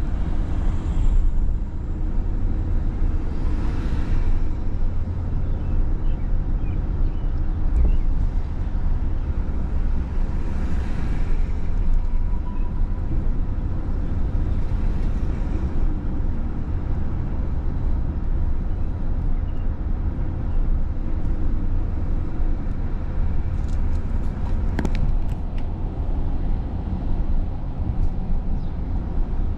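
Outdoor city street noise: a steady low rumble with four vehicles swelling past in the first half, and a few sharp clicks near the end.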